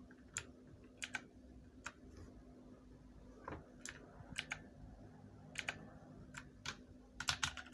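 Scattered key presses on a Motospeed Inflictor CK104 mechanical keyboard with Outemu Blue switches: about a dozen sharp, faint clicks at irregular intervals, with a quick run of several near the end.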